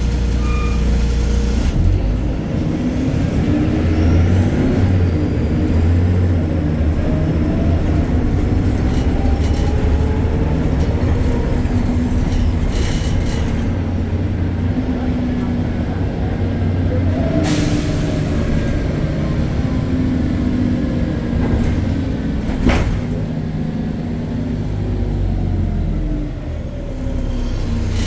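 BredaMenarini Avancity Plus bus's Deutz diesel engine and ZF automatic gearbox running under way, the engine pitch rising and falling with speed and gear changes, with a high whine over it. Two short sharp noises stand out later on.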